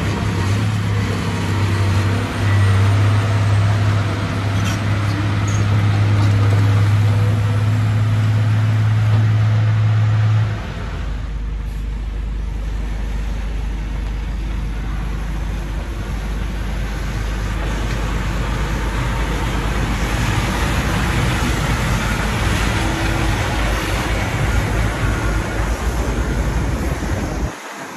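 Diesel engine of a Caterpillar 345B excavator running steadily with a strong low hum. After a cut about ten seconds in, there is the lower rumble of an Iveco Trakker 500 truck loaded with stone blocks driving past on a gravel track.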